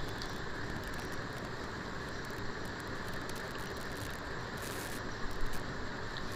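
Pieces of liver sizzling as they fry in oil in a nonstick wok, a steady sizzle, with a few light knocks about five seconds in.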